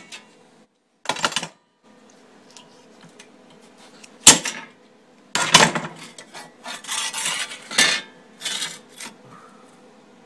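A thin sheet-steel welding practice plate being handled and turned over, knocking and scraping against metal: scattered short metallic knocks, the sharpest about four seconds in, with a run of clatters near the end.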